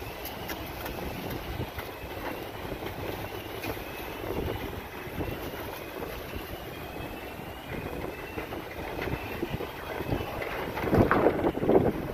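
Sandstorm wind buffeting a phone microphone, a steady rumbling rush that gusts louder near the end. A faint high rising chirp repeats about every two-thirds of a second underneath.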